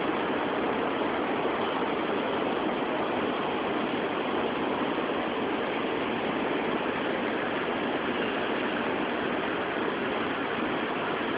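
Steady street traffic noise, an even hum of passing and idling vehicles with no single event standing out.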